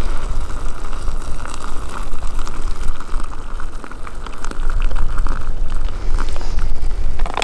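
Hot water poured from a backpacking stove's pot into a freeze-dried meal pouch: a steady pouring splash that stops about five and a half seconds in. Low wind rumble on the microphone runs underneath.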